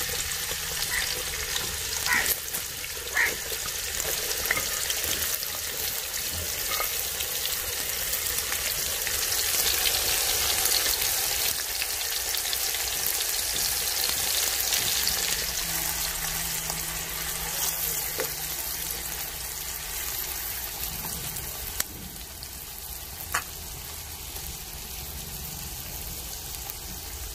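Sliced onions sizzling and frying in hot oil in a karahi, at the start of browning for a masala base. The sizzle swells about a third of the way in and eases off near the end, with a few sharp clicks along the way.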